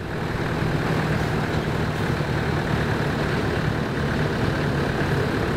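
Safari game-drive vehicle's engine running steadily as it drives, a constant low drone.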